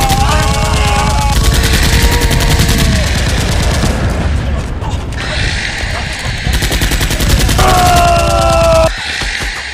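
Machine-gun sound effects dubbed over toy-blaster firing: long bursts of rapid automatic shots, easing off briefly about four seconds in and dropping out just before the end. Shouted voices come through near the start and again about eight seconds in.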